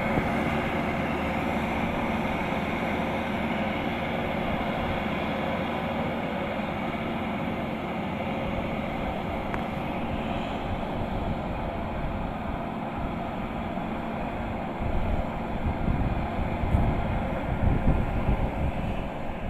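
Kubota DC-105X rice combine harvester running steadily, its diesel engine and threshing machinery giving a continuous mechanical drone. In the last few seconds, irregular low buffeting comes in over it.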